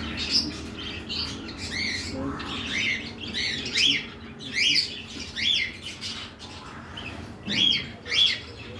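Cockatiel fussing to be given chips, calling over and over in short sharp squawks that rise and fall in pitch. The loudest calls come in pairs from about four seconds in.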